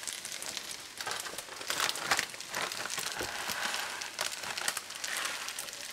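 Plastic bag of grated Parmesan cheese crinkling as it is handled and shaken out over a skillet, with irregular crackles.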